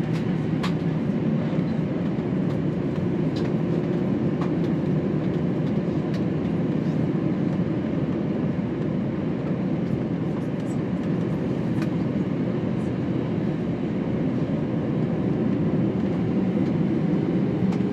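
Airbus A321 cabin noise while taxiing: a steady rumble and hum from the engines and wheels, with scattered light clicks and rattles. The level holds even, with no takeoff run up.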